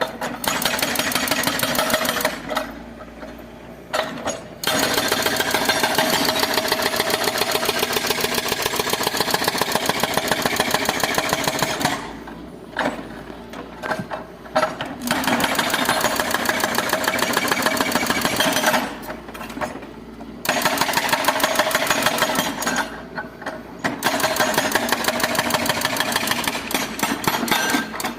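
Excavator at work: a fast, even mechanical hammering in long runs, broken several times by short quieter pauses.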